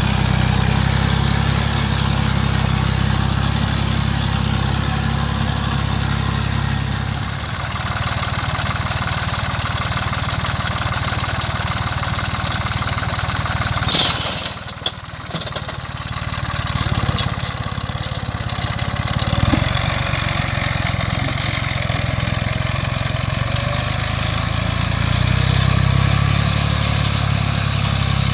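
SAME orchard tractor's diesel engine running steadily under load while it pulls a ripper shank laying drip tubing through stony soil. A short, loud noise comes about halfway through, followed by scattered clicks.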